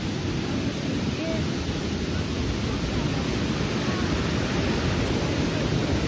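Steady rushing of a mountain river tumbling over rocks, with faint distant crowd voices.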